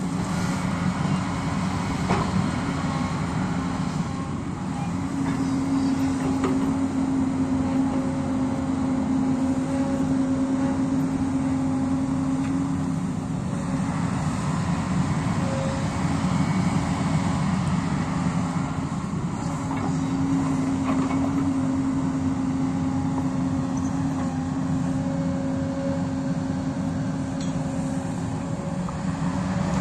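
Hyundai crawler excavator's diesel engine running steadily under digging load, its pitch swelling and easing over stretches of several seconds as the hydraulics work the bucket. A few knocks of rock and soil.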